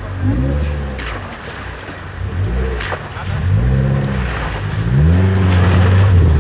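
An off-road 4x4's engine revving up and dropping back about five times, the pitch climbing and falling with each burst of throttle, as it works over rough ground. The last rev near the end is held longer. There are a couple of brief knocks from the vehicle in between.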